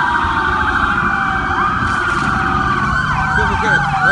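Several emergency-vehicle sirens sounding at once: overlapping slow wails that sweep down in pitch, joined about three seconds in by a fast yelp of roughly three rises a second, over a steady low rumble.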